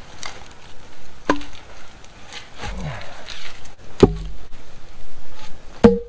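Three sharp knocks of wood striking wood, each with a short hollow ring, as logs and poles are set down and knocked together. A campfire crackles faintly underneath.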